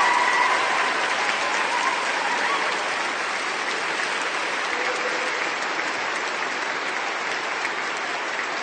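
Applause from many people clapping, a dense, steady patter of hands. A held pitched sound over the clapping dies away just after the start.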